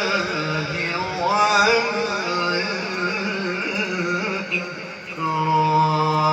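A man's voice reciting the Quran in melodic tajweed style, drawing out long wavering notes; after a short breath about five seconds in, he holds one long steady note.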